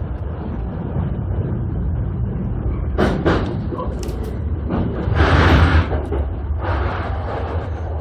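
JR Sobu Line commuter electric train running, with a steady low rumble. Short rushes of hiss come about three seconds in and near the end, and a longer, louder one at about five seconds.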